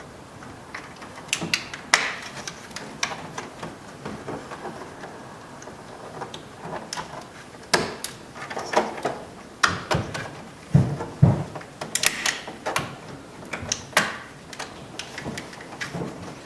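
Plastic clicks, snaps and rattles as wiring connectors are plugged into a power window and door lock switch and the switch assembly is handled, with a scatter of sharper snaps throughout.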